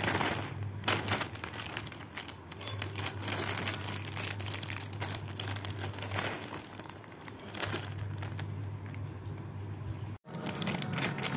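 Crinkling of a foil-lined plastic snack packet (Kurkure Masala Munch) being opened and handled, over a steady low hum. The crinkling breaks off abruptly about ten seconds in.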